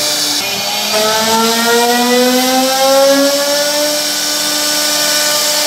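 Electric spindle of a CNC wood router whining, its pitch rising slowly over about three seconds as it comes up to speed and then holding a steady whine, over a constant hiss of the bit cutting wood.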